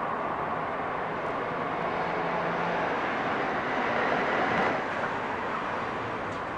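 Steady street traffic noise with a city bus driving away, a low engine hum audible early on under the general road noise. The sound swells a little about four seconds in, then drops slightly.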